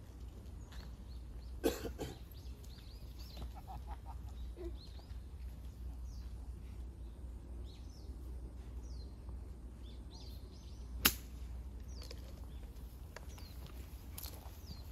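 Birds chirping over a low steady outdoor rumble, with a short knock about two seconds in and a sharp click of a golf club striking a ball about eleven seconds in.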